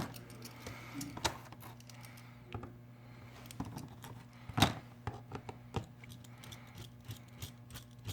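Scattered small clicks and taps of a Phillips screwdriver and small tools working at the screws of a rugged phone's plastic housing, with one sharper click about four and a half seconds in.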